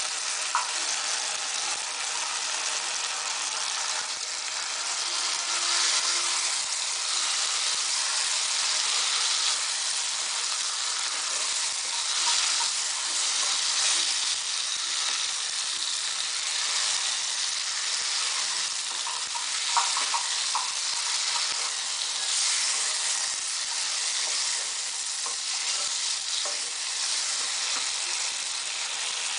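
Boiled potato pieces and tomatoes frying in oil in a pan, sizzling steadily while a spoon stirs them, with a few sharp clicks of the spoon against the pan about twenty seconds in.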